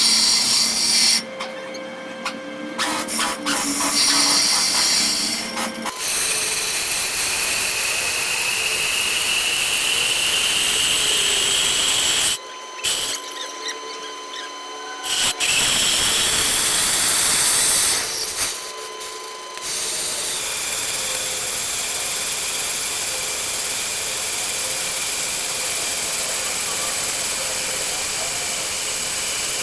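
A power tool running in several long bursts, with a tone that rises as it spins up, starting and stopping abruptly.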